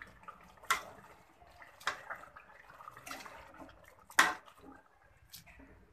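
Hand masher squashing cooked vegetables for pav bhaji inside a pressure cooker: a wet squelching with about four sharp knocks of the masher against the pot, the loudest a little past four seconds in.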